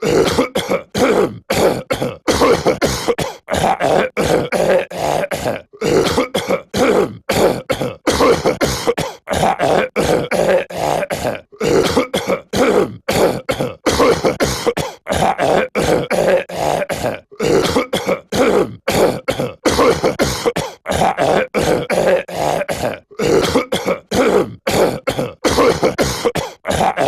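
Cartoon character's voice clearing his throat and coughing over and over: short, rough throat-clearing sounds repeated in quick succession with brief gaps between them.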